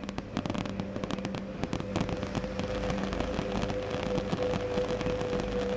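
Fireworks crackling and popping in a dense, rapid stream of small bangs.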